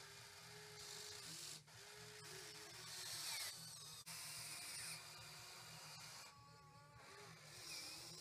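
Faint whine of an RC excavator's small electric motors, its pitch sliding up and down as the boom and bucket move, with bursts of hiss from loose dirt scraping and pouring.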